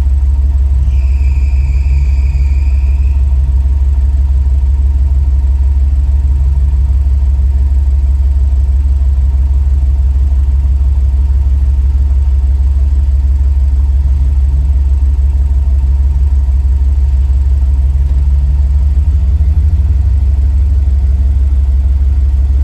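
Off-road vehicle's engine running at low speed, heard from inside the cab as a heavy, steady low rumble with a wavering engine note. A brief high squeal comes about a second in.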